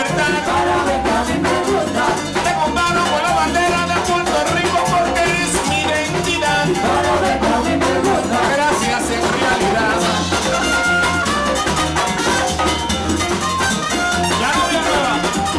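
Live band playing upbeat Latin dance music, with pandero frame drum, brass, drum kit and singing.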